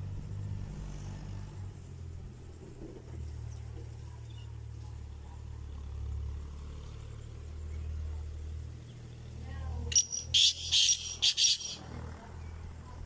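Black francolin calling: a quick, loud run of about six harsh notes lasting under two seconds near the end, over a steady low rumble.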